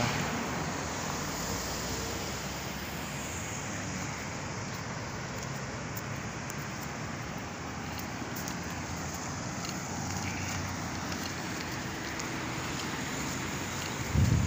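Steady outdoor street ambience: a constant hum of road traffic. A short low thump comes near the end.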